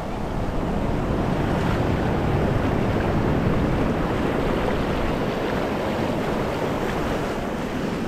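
Ocean surf washing over shallow sand: a steady rush of foaming water that swells a little a couple of seconds in, with wind buffeting the microphone.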